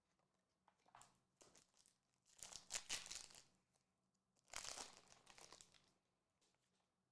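Foil Pokémon booster pack wrapper crinkling and being torn open. Light crackles come first, then two louder bursts of crinkling about two and a half and four and a half seconds in.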